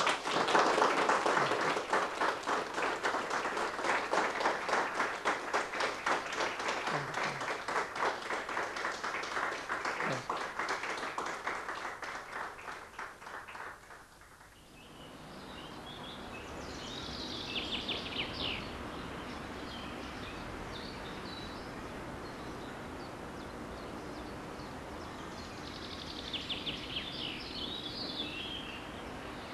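An audience applauding, dying away about fourteen seconds in. It is followed by a steady outdoor background with birds chirping in two short bouts.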